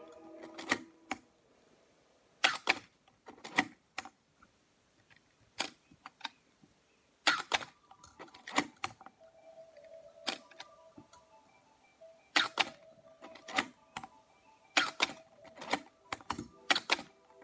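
Canon AE-1 35mm SLR being cycled by hand: film advance lever, shutter release and depth-of-field preview lever making a string of sharp mechanical clicks and clacks, many in close pairs, every second or two.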